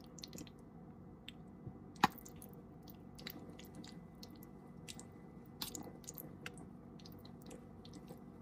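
Faint wet squishing and light clicks of a utensil spreading a cheese and sour cream mixture over spaghetti in a baking pan, with one sharp click about two seconds in.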